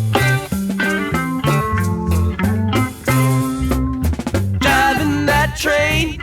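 Rock song with guitar, bass and drums, a male voice starting to sing about three-quarters of the way through.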